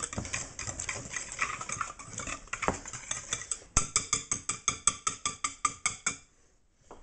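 Wire balloon whisk beating softened butter and egg in a glass bowl, the wires clicking and scraping against the glass. Just past halfway the strokes settle into an even rhythm of about four a second, then stop shortly before the end.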